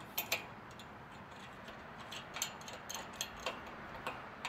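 A scatter of light clicks and taps as a gate hinge clamp is fitted and fastened onto the galvanized pipe frame of a chain-link gate.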